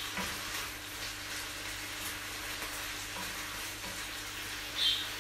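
Chopped beef sizzling steadily in a frying pan, with one brief louder sound near the end.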